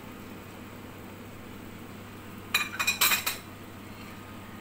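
A metal spoon and a ceramic plate clinking against a ceramic bowl as a boiled egg is slid off onto the noodles: a quick cluster of ringing clinks lasting under a second, about halfway through, over a faint steady hum.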